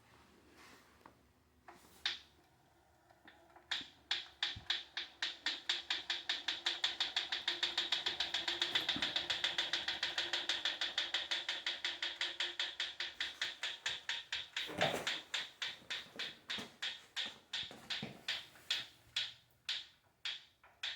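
Proform Power C7L exercise bike making a steady run of sharp ticks as it turns. The ticks quicken to several a second, then slow and stop near the end, with a faint hum under the fastest part. It is an abnormal ticking that the owner reports growing louder and more frequent, along with a worsening wobble in the wheel, though no bolts are loose and nothing is visibly rubbing.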